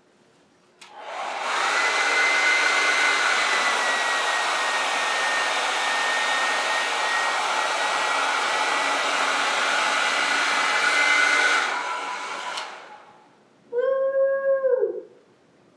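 Handheld hair dryer on its hot, highest setting, running steadily with a high whine as it blows into a plastic trash bag, then switched off and winding down about twelve seconds in. Near the end comes a short high-pitched call that rises then falls in pitch.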